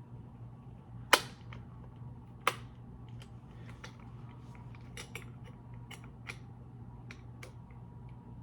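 Sharp metal and plastic clicks from fitting a blade onto an oscillating multi-tool: two loud clicks about a second and two and a half seconds in, then a run of lighter, irregular ticks. A faint steady low hum lies underneath.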